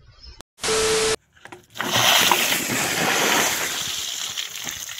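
Water gushing out of a wall and splashing heavily onto wet ground, starting about two seconds in and easing slightly. Before it, a brief loud burst of noise with a steady tone.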